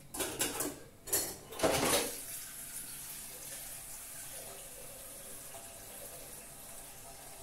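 Water being poured into a cooking pot in three short splashing bursts, followed by a steady soft hiss from the stove.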